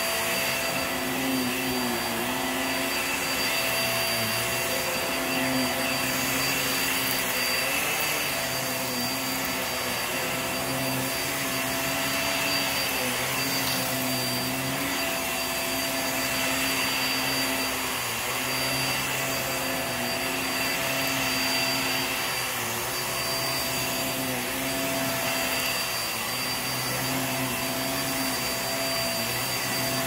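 Hoover React Powered Reach upright vacuum running on carpet, with a steady motor whine and a low hum that dips briefly every few seconds as it is pushed back and forth.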